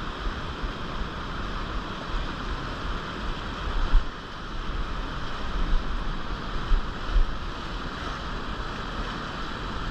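Fast river whitewater rushing and churning steadily. Wind rumbles unevenly on the microphone, with a brief louder buffet about four seconds in.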